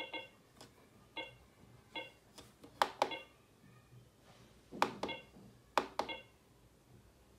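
Cardiomark CM 9000 patient monitor giving short key-press beeps about once a second as its menu is stepped through, each beep confirming a control input. Several sharp clicks from the front-panel controls being pressed are louder than the beeps.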